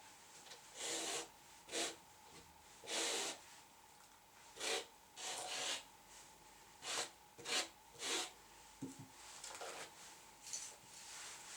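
A grooming tool worked over a poodle puppy in about a dozen short, scratchy rubbing strokes at an irregular pace.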